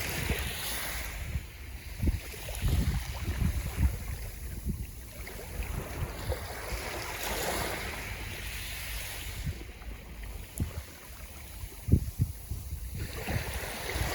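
Sea waves washing in, the hiss swelling near the start, about seven seconds in and again near the end, with wind buffeting the microphone in low gusts throughout.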